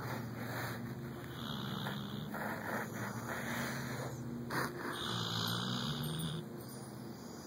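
Chocolate Labrador snoring in its sleep: slow, long breaths with a low buzzing tone, about two full breath cycles, with a short click about four and a half seconds in.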